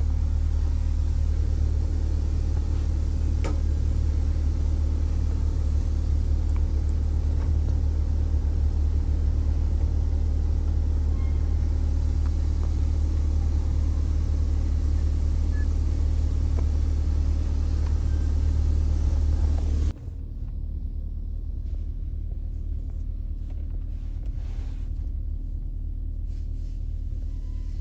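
Steady low rumble of a car heard from inside the cabin, its engine running. About 20 seconds in it cuts suddenly to a quieter rumble with a few faint knocks.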